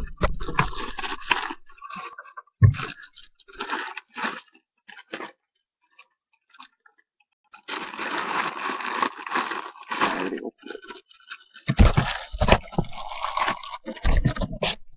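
Plastic Ziploc bag and packaging crinkling and rustling as they are handled, in irregular spells with a short pause in the middle. A few sharp knocks and clicks come near the end. The sound is dull and thin through a netbook webcam's microphone.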